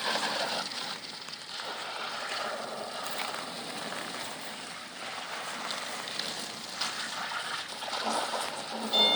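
Steady rushing noise through most of it. Near the end a high electronic beep starts: the reverse warning beeper of an electric golf cart.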